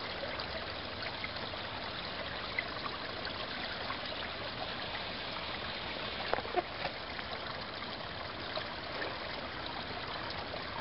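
Creek water flowing steadily, with a couple of brief sharp sounds about six and a half seconds in.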